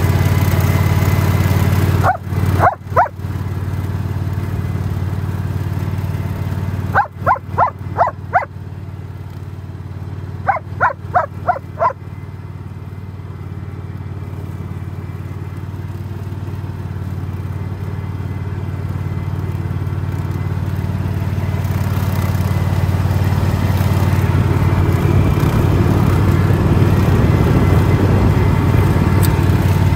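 Riding mower's single-cylinder Kawasaki engine running steadily, with a large dog barking in short runs: a few barks about two seconds in, then two quick runs of about five barks each around seven and ten seconds in. The engine grows gradually louder through the second half.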